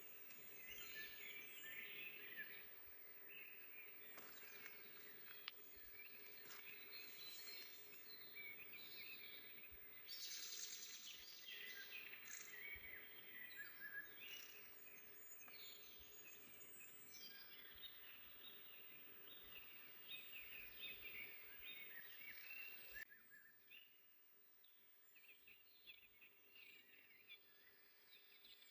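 Several small songbirds singing and chirping at once in a forest, faint, over a light background hiss. About three-quarters of the way through the level drops suddenly and the birdsong becomes sparser and quieter.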